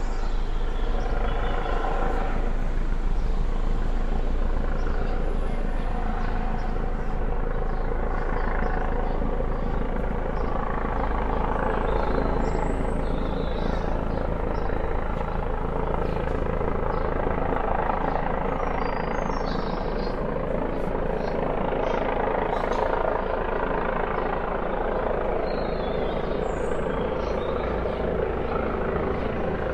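Police helicopter circling overhead: steady rotor and turbine noise that eases off slightly near the end.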